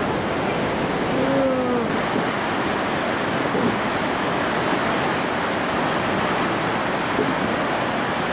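Steady rush of the flooded South Esk River pouring through the gorge basin, an even noise without letup. It brightens slightly about two seconds in.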